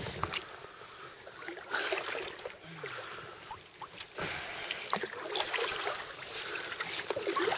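Water sloshing and splashing around a fishing kayak, with scattered knocks and small clicks from handling on the boat.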